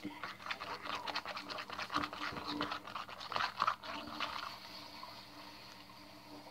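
A metal spoon stirring and scraping gooey homemade slime in a small plastic tub: a fast run of scraping with many small sticky clicks that dies down after about four seconds.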